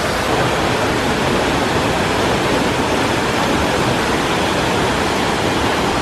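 Water slide runoff pouring off the slide's lip and cascading down a rock face into the pool: a steady, even rush of falling water.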